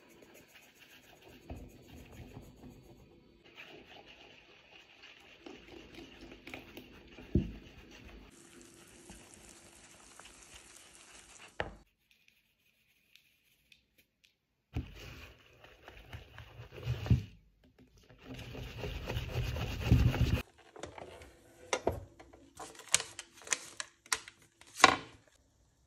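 Kitchen prep sounds: flour pouring and rubbing into a plastic mixing bowl with a soft knock, a few seconds of near silence, then louder scraping and handling in the bowl, and a run of sharp clicks and taps near the end.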